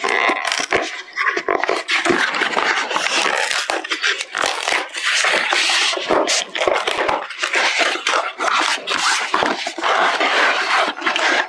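A cardboard shipping box being opened by hand: the flaps are pulled apart and the cardboard rustles and scrapes unevenly as the tin inside is worked out.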